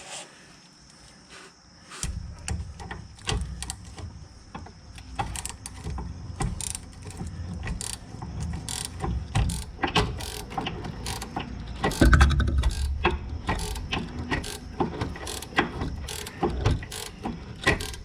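Hand ratchet wrench clicking in runs of quick strokes as the nut on a rear sway bar link is turned, beginning about two seconds in. A louder, heavier knocking of tool and metal comes a little past the middle.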